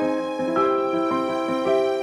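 Background music: soft, sad-sounding piano or keyboard melody.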